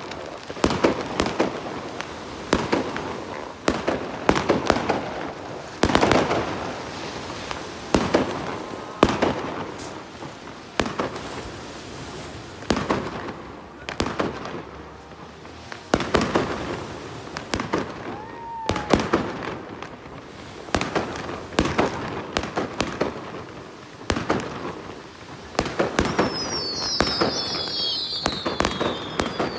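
Aerial fireworks bursting: a run of sharp bangs, a loud report every second or two, with crackling between them and high falling whistles near the end.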